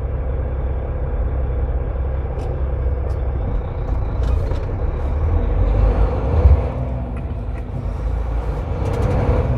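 Semi truck's diesel engine running and tyre noise while driving, a steady low rumble, with a brief thump about six seconds in.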